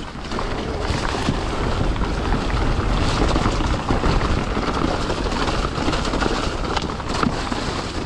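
Electric mountain bike on Michelin downhill tyres riding fast down a wet trail: a steady rush of tyre and trail noise with frequent knocks and rattles from rocks and roots, and wind buffeting the microphone.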